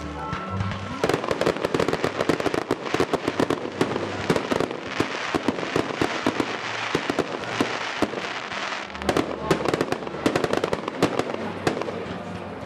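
Aerial fireworks display: a dense run of rapid cracks and bangs from shells launching and bursting, starting about a second in, with crackling between them.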